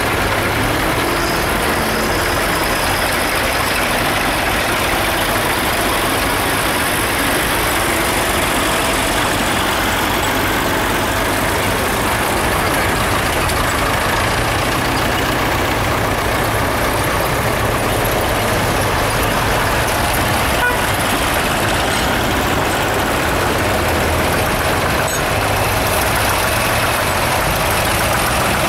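Engines of a line of vintage tractors running steadily as they drive past one after another on a gravel shore track, a continuous mix of engine noise with no single engine standing out for long.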